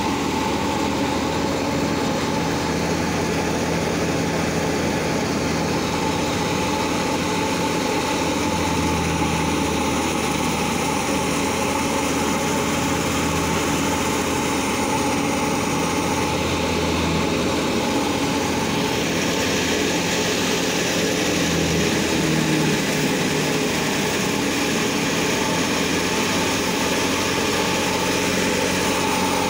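Wheat thresher running steadily while wheat straw is fed into it, a continuous mechanical drone with a steady whine riding over it.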